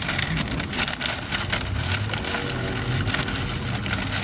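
Honda Civic cabin with the engine running at a low hum under irregular crackling and rustling.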